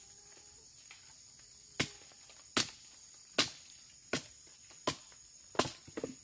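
Machete blade chopping into a wooden stick: six sharp blows, about one every three-quarters of a second, starting about two seconds in.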